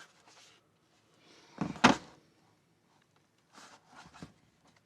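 Handling noise from a tablet in a hard plastic case: a short cluster of knocks and a thunk a little under two seconds in, then a few faint taps.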